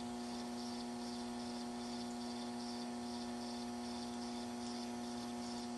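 Steady electrical hum with a faint high-pitched pulsing about two and a half times a second.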